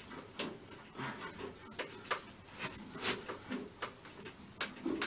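Irregular light clicks and knocks, about a dozen, from hands and tools working on a 1964 Volkswagen bus engine.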